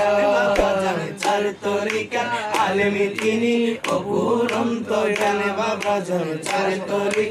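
A man singing a Bengali manqabat, a Sufi devotional song, unaccompanied, in long held and wavering melismatic lines. Regular hand claps keep time, about one every two-thirds of a second.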